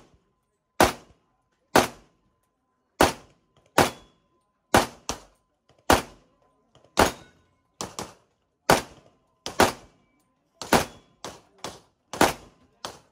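Handgun shots fired in a steady string, about one every second, some in quick pairs, each a sharp report with a brief echo.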